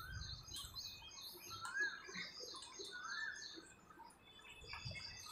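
Birds chirping faintly: many short, rapid chirps with a few sweeping calls that rise and fall.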